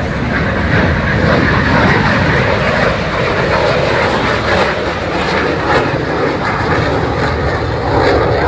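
A fixed-wing aircraft's engines, heard as a loud, steady rushing noise that fades out just after the end.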